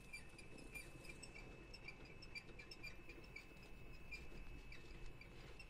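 Faint rustling and pattering of Djungarian hamsters moving about in wood-shaving bedding, with a light regular ticking about four times a second and a thin steady high whine.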